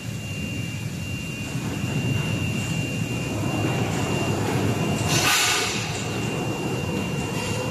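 Vertical insulating glass production line running, with a large glass pane carried along its conveyor rollers: a steady low rumble with a thin steady whine over it, and a short hiss about five seconds in.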